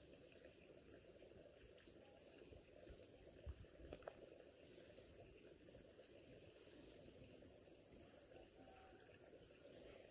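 Near silence: faint steady high-pitched insect chirring, with a couple of soft taps about three and a half to four seconds in.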